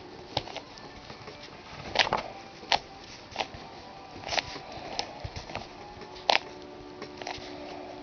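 Plastic Rubik's Cube layers being turned by hand, giving irregular sharp clicks and clacks, about ten of them, the loudest about two seconds in and near the end.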